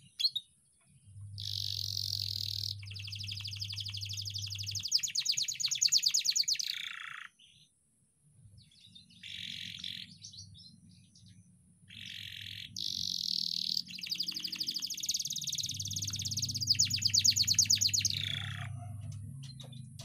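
Domestic canary singing: two long phrases of fast rolling trills, each several seconds long, with a short burst of song between them.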